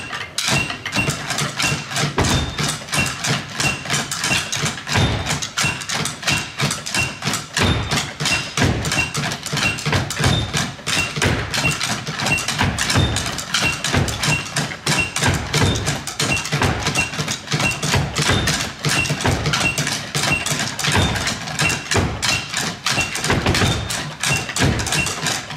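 Many drumsticks tapping together in ToneAlly stick-control practice frames: a dense, continuous clatter of wooden strokes from a whole class playing at once.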